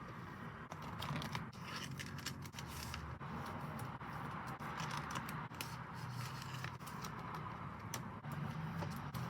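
Packaging and paper goods being handled and unwrapped: scraping, crinkling and frequent small clicks, over a steady low hum.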